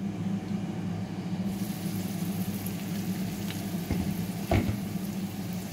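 Baby potatoes and carrots sizzling gently in olive oil in a frying pan over low heat, a steady frying hiss. A few faint clicks and one louder knock come about four and a half seconds in.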